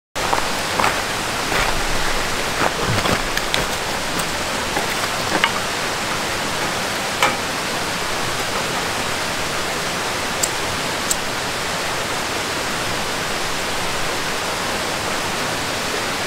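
Wood campfire burning: a steady hiss with scattered sharp crackles and pops, thickest in the first few seconds, then only a couple of small ticks.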